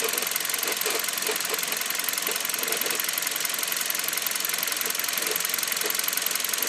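Hyundai Solaris engine running steadily at idle, with a very fast, even ticking and irregular short knocks on top: the unexplained extraneous noise the owner is recording.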